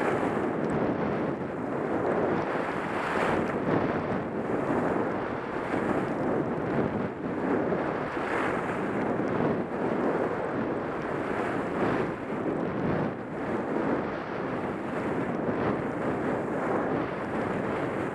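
Wind buffeting a helmet-mounted camera's microphone during a fast downhill run, mixed with the steady hiss of sliding over groomed snow.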